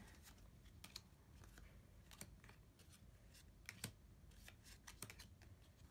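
Near silence with faint, scattered clicks of trading cards being handled and flipped through, the sharpest about four seconds in.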